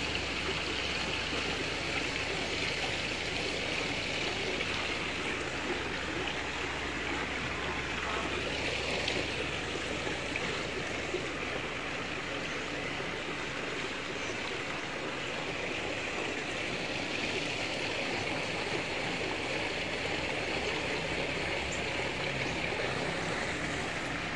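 Water from a small rock waterfall splashing steadily into a garden koi pond, a continuous even rush.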